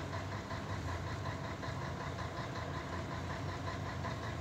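Truck's diesel engine idling steadily, heard from inside the cab, with an even low rhythmic pulse.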